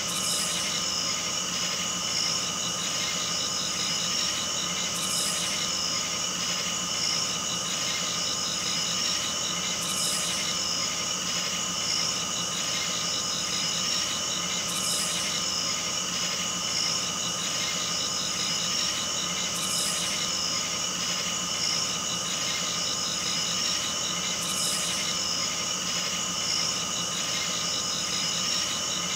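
Steady electronic drone of several held high-pitched tones over a faint low hum, with a soft hiss coming back about every five seconds.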